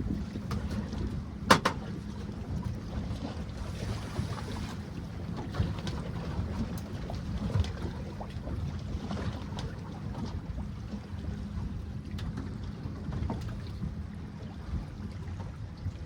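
Wind buffeting the microphone and water noise aboard a fishing boat, over a low steady hum. One sharp knock comes about one and a half seconds in, with a few lighter clicks and knocks after it.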